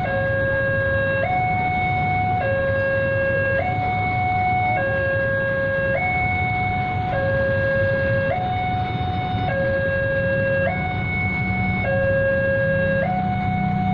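Electronic warning siren of a railway level crossing sounding a two-tone hi-lo alarm, switching between a lower and a higher tone a little more than once a second, steady and unbroken. A low rumble runs underneath.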